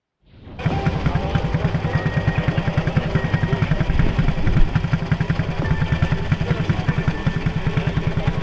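Quad bike (ATV) engine idling with quick, even pulses, fading in about half a second in.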